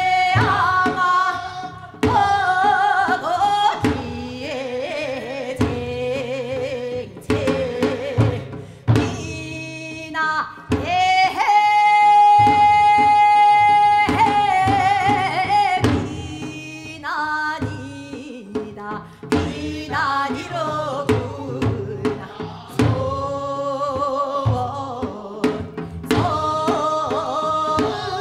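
A woman sings Seodo sori, the Korean folk song of the northwestern provinces, in a strong voice with a wide, wavering vibrato, over drum strokes. About eleven seconds in she holds one long high note for close to three seconds.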